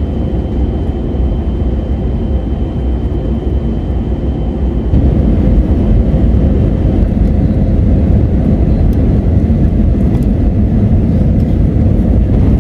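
Airbus A320 cabin noise heard at a window seat over the wing during descent: a steady low roar of engines and airflow that steps up in loudness about five seconds in. A faint high whine fades out midway.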